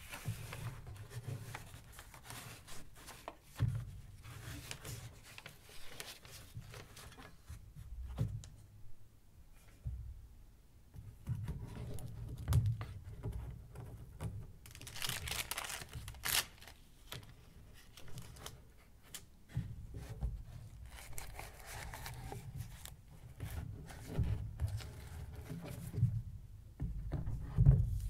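Paper rustling and crinkling in irregular bursts as fingers handle sheets in a wooden frame, with soft low thumps of handling noise throughout.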